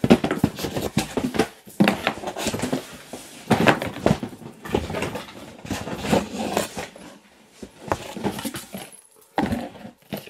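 Cardboard boxes and paper being handled: an irregular run of rustles, scrapes, taps and clicks.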